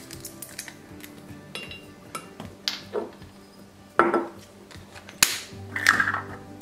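Small handling knocks and clinks of a measuring spoon, a spice shaker bottle and its plastic cap against a glass mason jar, as garlic salt is spooned into the jar: scattered single taps with sharper clicks about four and five seconds in and a short run of them near the end, over soft background music.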